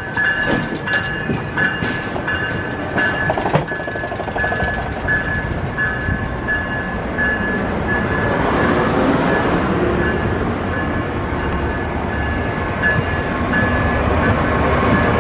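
Bilevel commuter train cars rolling slowly past a station platform, the wheels clicking over rail joints, with a repeating high ringing tone. The rumble grows louder from about eight seconds in.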